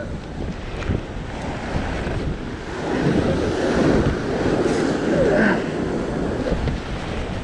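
Ocean surf surging and washing against a rock ledge, with wind buffeting the microphone; the wash grows louder about three seconds in.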